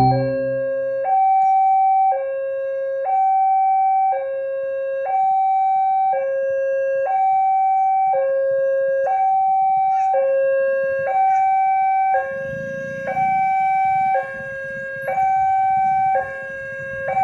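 A two-tone hi-lo siren, alternating between a higher and a lower note, each held about a second.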